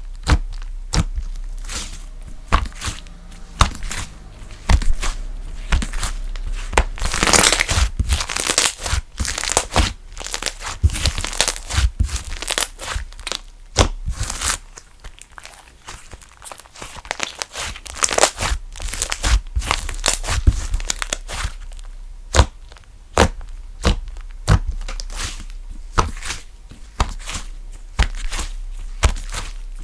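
Slime being squished, pressed and stretched by hand, giving a long run of sharp clicks and crackling pops, with denser crackly stretches about seven and eighteen seconds in.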